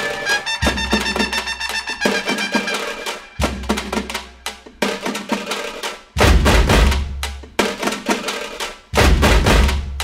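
Background music with a driving drum-kit beat: rapid drum strikes over held instrument tones, with heavy bass drum in several passages, strongest from about six seconds in.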